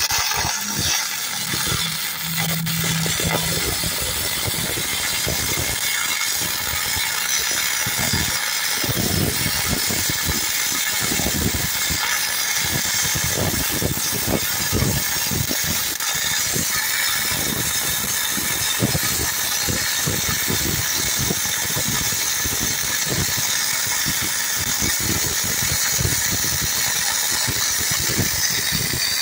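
Self-shielded flux-cored arc welding with Lincoln NR-311 wire: the arc runs without a break as a steady, crackling hiss while a full-penetration weld is laid on a steel beam's bottom flange.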